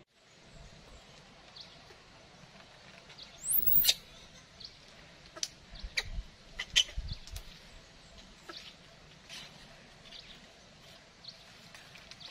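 A baby monkey giving one shrill, high-pitched squeal about three and a half seconds in, then scattered short squeaks and sharp clicks.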